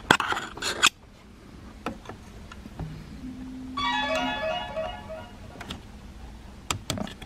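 Sharp plastic clicks and rattles as the turn signal switch is pried at its retaining tabs with a pick, loudest in the first second and again near the end. About four seconds in, a short electronic jingle of quick notes sounds.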